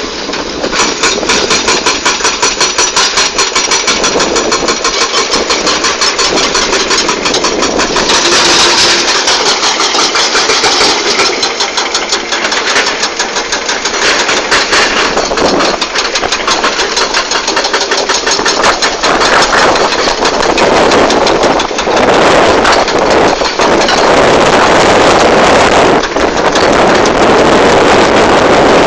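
Excavator diesel engine running hard, with the fast, regular hammering of a hydraulic rock breaker on hard rock.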